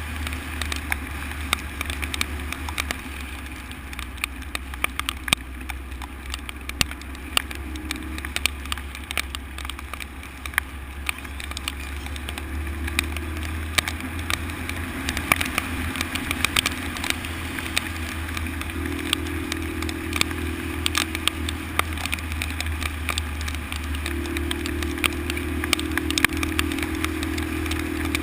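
Honda XL125 single-cylinder four-stroke engine running as the motorcycle is ridden over a rough dirt road, its note shifting a few times with the throttle. Frequent sharp knocks and rattles from the bike jolting over the rough surface.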